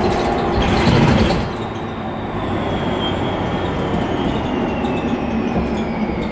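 Interior running noise of a Mercedes-Benz Conecto NGT gas-powered city bus in motion, with a thin high whine that glides steadily down in pitch. About a second in there is a brief, loud rush of noise.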